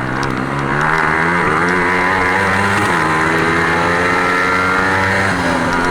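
Racing engines running hard at speed, several pitches overlapping and shifting slightly as the race passes.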